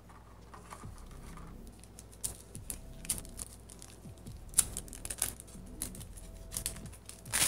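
Light clicks and short rustles of plastic being handled: a capped saliva collection tube and its kit packaging. The loudest rustling comes near the end.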